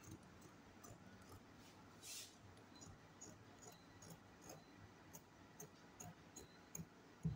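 Near silence with faint scattered ticks, a brief swish about two seconds in and a low thump near the end, from hands working a piece of stretch denim on a table.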